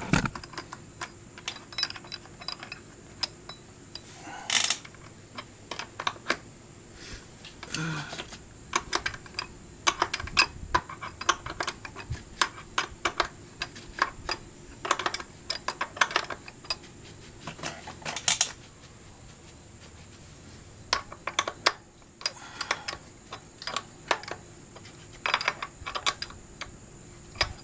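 Wrench clicking and clinking against a motorcycle's swingarm chain adjuster bolt, turned in short strokes to draw the chain tight; the clicks come in irregular clusters, with a brief lull a little past the middle.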